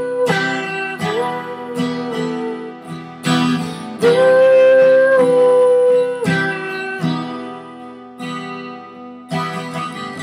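Acoustic guitar strummed in a slow rhythm, with a woman's voice holding long wordless notes that step and slide between pitches; it grows quieter in the second half.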